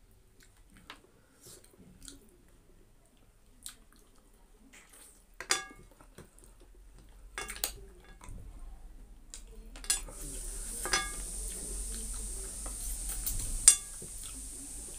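Eating rice by hand from a ceramic plate: soft sounds of fingers mixing food against the plate, with chewing, and a handful of sharp clinks on the plate that ring briefly, the loudest near the end. A steady hiss comes in about two-thirds of the way through.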